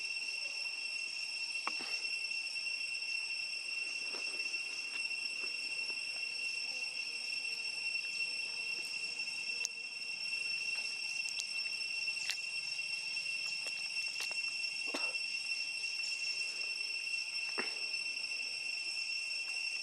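A steady, high-pitched chorus of insects buzzing in the forest, with a few short clicks and rustles scattered through it, about five in all.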